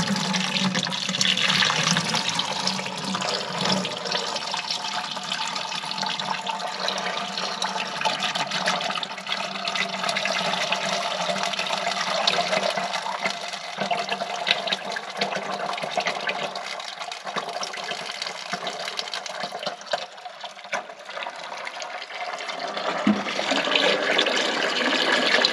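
Used engine oil pouring in a steady stream from the opened sump drain of a Spra Coupe 7660 sprayer, splashing into a bucket and onto wrenches lying below.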